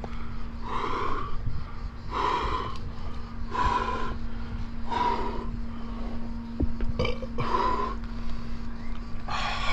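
A rock climber breathing hard and rhythmically while climbing, with a forceful, partly voiced breath about every second and a half.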